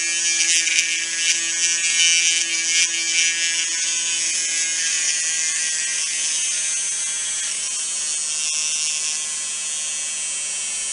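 Let's Resin handheld electric resin drill running at high speed with a high-pitched whine, its tiny bit boring into a small resin bead. The whine is uneven and louder for the first few seconds, then settles and eases slightly near the end.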